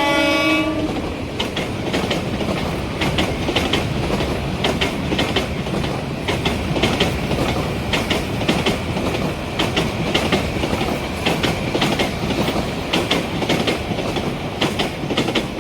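Hyundai Rotem diesel-electric locomotive's horn, a chord of several tones, cuts off about a second in. Then a passenger train rolls past with a steady rumble and many sharp, irregular clicks.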